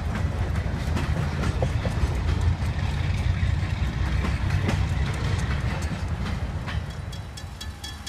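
Freight train boxcars rolling past: a low rumble with the wheels clicking on the rail, growing fainter as the train moves off. Near the end, a grade crossing bell rings in quick, even strokes, about three a second.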